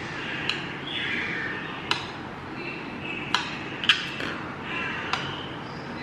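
A steel kitchen knife clicking against a ceramic plate as it slices down through set agar-agar jelly pudding: about six sharp clicks, the two loudest close together a little before the middle.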